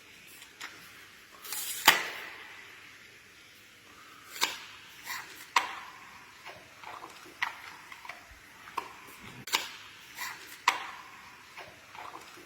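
A panda eating, its chewing giving irregular sharp cracks and crunches, the loudest about two seconds in.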